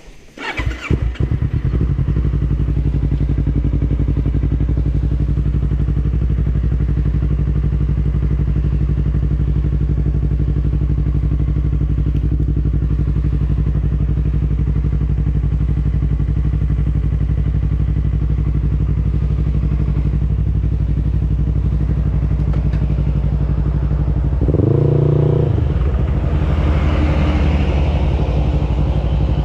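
An engine starts about half a second in and then idles steadily. Near the end its note changes briefly and it runs slightly louder.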